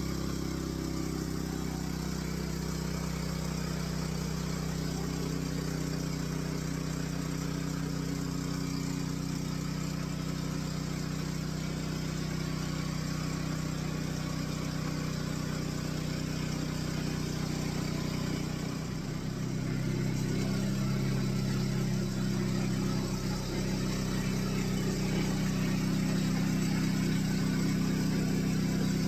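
Homemade sawmill's engine running steadily. About two-thirds of the way through it briefly dips, then runs louder at a changed pitch.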